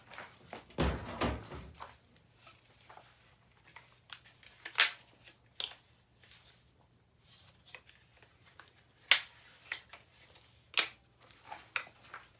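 Handling noise from a Kel-Tec Sub 2000 carbine: a rustling bump, then a few sharp separate clicks and knocks of the gun being moved and set in place.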